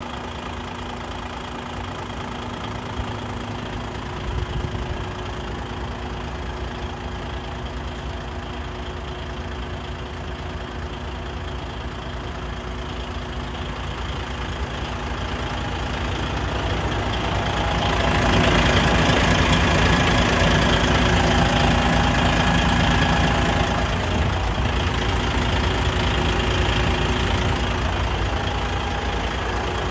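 DAF CF85.460 truck's 12.9-litre PACCAR MX straight-six diesel idling steadily, growing louder a little past halfway.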